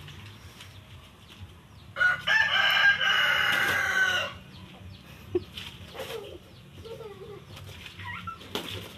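A rooster crowing once, a single loud cock-a-doodle-doo of a little over two seconds starting about two seconds in, followed by a few faint short calls.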